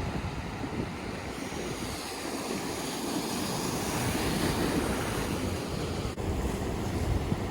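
Ocean surf washing onto the shore, with wind buffeting the microphone.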